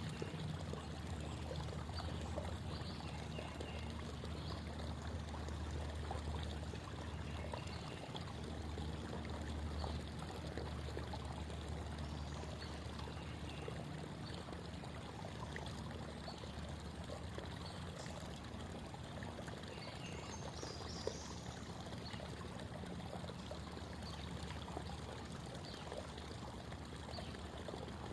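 Creek water babbling in a steady, continuous flow.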